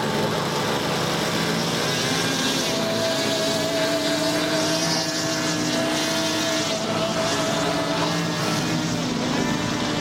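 Propeller-driven RC aerobatic model airplanes droning in flight, several steady engine-and-propeller tones that shift pitch partway through as the planes manoeuvre.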